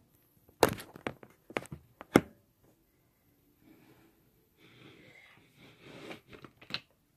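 Handling noise close to the microphone: a quick run of sharp clicks and knocks in the first two seconds, then soft rustling with a few more clicks near the end.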